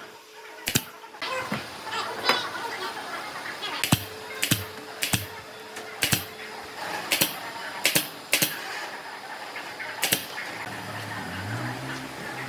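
A dozen or so sharp, irregular taps and knocks, a few per second with pauses between, like hand tools or pieces of wood striking during woodworking. Near the end a low droning sound starts and rises in pitch.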